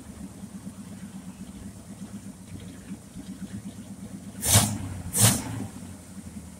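A pressure washer's small engine runs steadily, and two short blasts of high-pressure spray come about two-thirds of the way through, less than a second apart.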